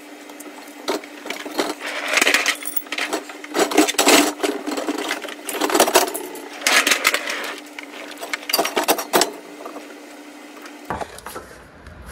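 Scrapes, clicks and knocks of hands working a hose loose from a plastic fuel tank on a 2000 GMC Jimmy, in irregular bursts, over a steady hum.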